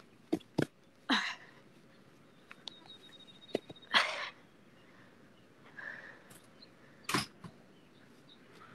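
A person's short, breathy huffs close to the microphone, three of them a few seconds apart, the loudest about four seconds in. Two sharp clicks come about half a second in.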